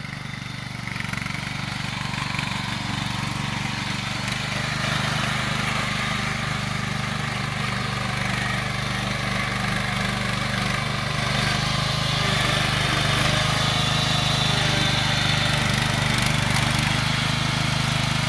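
Husqvarna CTH 170 garden tractor's engine running steadily as the tractor drives through snow. It gets louder about four seconds in and stays under load as the tractor climbs a snowy slope.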